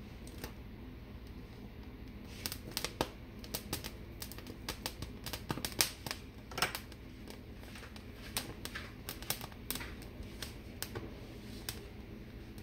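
Poblano pepper skins crackling and popping as they char and blister over an open gas flame: irregular sharp clicks, thick from about two seconds in and thinning out near the end, over the steady low sound of the lit burner.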